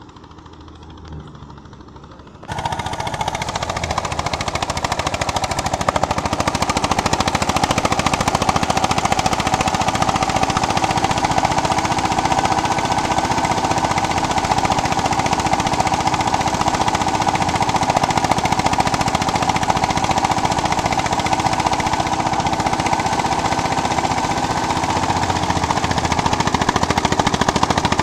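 Eicher 241 tractor's single-cylinder air-cooled diesel engine running steadily under load, belt-driving a thresher, together with the thresher's running drum: a loud, rapid, even chugging. The sound jumps sharply louder about two and a half seconds in, then holds steady.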